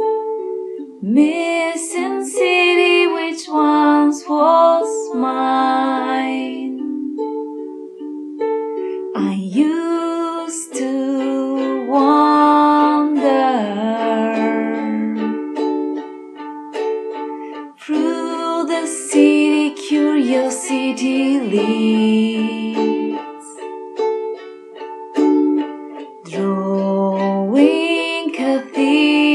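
Background music: a ukulele song with a sung melody over the plucked and strummed ukulele.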